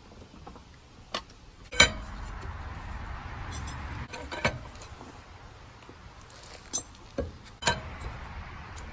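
Steel pry bar clinking and knocking against an aluminium alloy wheel, in about five sharp metallic clinks, the loudest a little under two seconds in. The bar is levered against the wheel to check the front end for play after new outer tie rods were fitted, and no clunk from the steering joints is heard.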